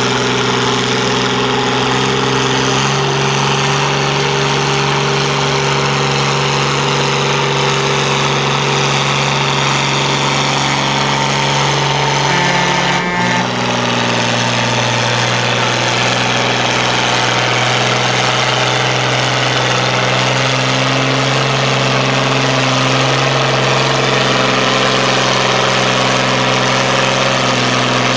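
Oliver 1655 tractor engine running steadily under load while pulling a weight-transfer sled at a slow, held speed. The engine note stays nearly constant and shifts abruptly about halfway through.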